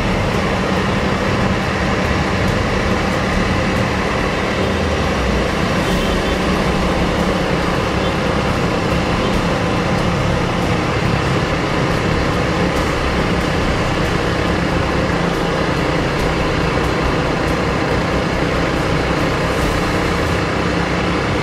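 Honda CRF Rally's single-cylinder engine running steadily while riding along, under an even rush of wind and road noise.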